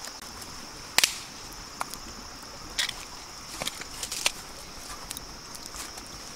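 Wood fire under a bamboo grilling rack giving a few sharp pops and snaps, the loudest about a second in, over a steady high drone of insects.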